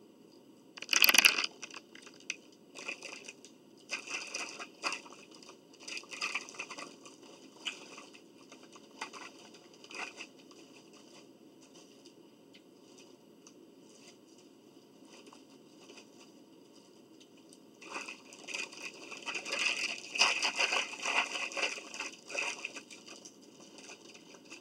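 Paper sandwich wrapper and paper bag crinkling and rustling as they are handled, in scattered bursts, with a loud burst about a second in and a longer spell of dense crinkling near the end.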